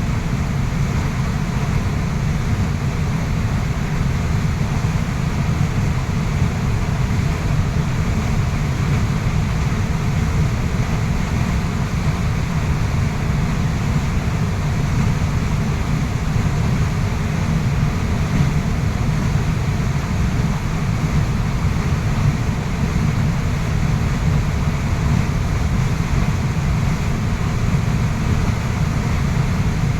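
Waterfall in a steady, deep rush of falling water, an unbroken noise heaviest in the low end.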